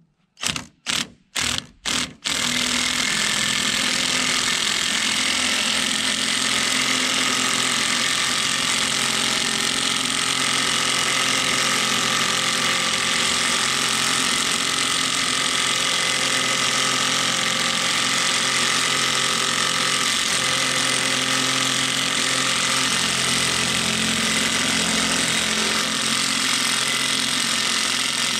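Cordless impact wrench running a gear puller's forcing screw to pull a gear off a conveyor shaft: five short bursts, then hammering without a break from about two seconds in.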